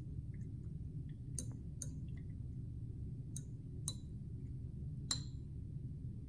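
Temperature probe clinking against the inside of a glass beaker as the water is stirred: five sharp clinks, two pairs and then one, over a steady low hum.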